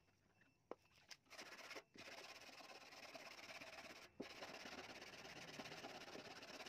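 Airbrush spraying paint: a steady hiss of air that starts a little over a second in after a couple of clicks, and breaks off briefly twice.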